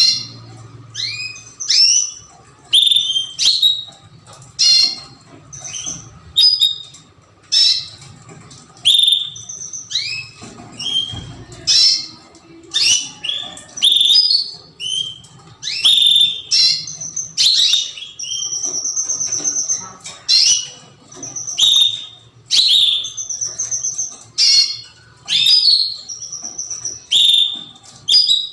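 Pet canaries singing: high, gliding chirps and whistled phrases about once a second, with a held trill about two-thirds of the way through.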